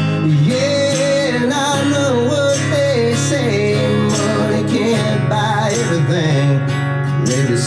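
Live country song: a man singing a wavering melody over a strummed acoustic guitar.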